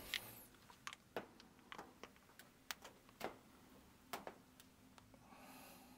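Faint, irregular light clicks and taps from hands handling small objects on a wooden work panel, with a soft rustle near the end.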